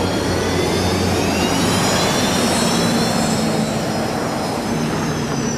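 Unlimited hydroplane's turbine engine running loud, with a high whine that rises in pitch over the first few seconds and then holds.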